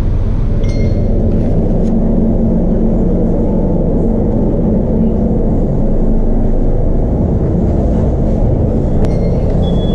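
City bus engine running with a steady low rumble and hum, heard from inside the passenger cabin. A short high electronic beep sounds about a second in, and another near the end.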